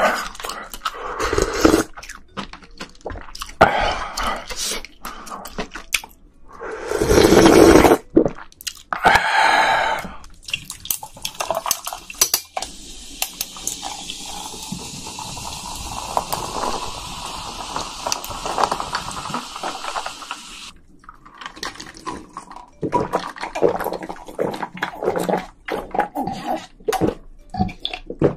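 Close-miked noodle slurping and chewing, the loudest slurp about seven seconds in. Then carbonated soda is poured over ice in a tall glass and fizzes steadily for about eight seconds before stopping abruptly, followed by gulping as it is drunk.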